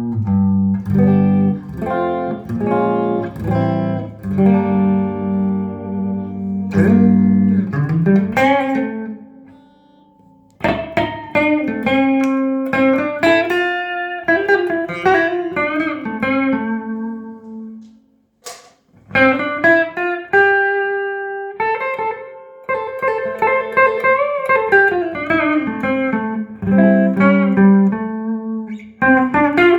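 Electric guitar with humbucking pickups played straight into a Trace Elliot Trident valve combo amp with 6L6 power valves, on its clean channel with no pedals. Ringing chords come first, then single-note lines with bends, broken by two short pauses.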